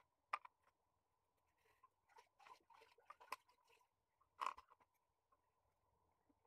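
Pencil strokes scratching on paper: a few faint short strokes, a cluster of them in the middle and a louder one about four and a half seconds in, over a faint steady hum.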